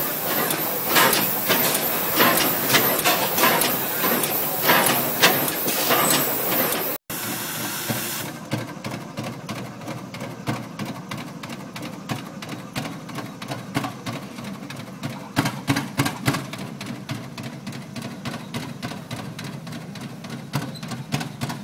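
Large old twin-cylinder engine with big flywheels running, a steady beat of exhaust strokes over a loud hiss. About seven seconds in it gives way to a vintage tractor engine running as the tractor drives, with a fast, even run of exhaust beats.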